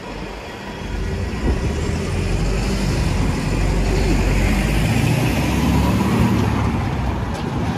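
Road traffic passing close on a city street, with a lorry going by; the engine and tyre noise builds over the first couple of seconds, stays loudest through the middle, then eases a little near the end.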